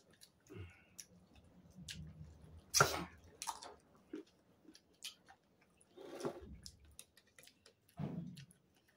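Close-up eating sounds from people eating rice and chicken wings by hand: wet chewing and lip smacks, fingers squishing and mixing rice on plates, and small clicks, with one louder sharp noise about three seconds in.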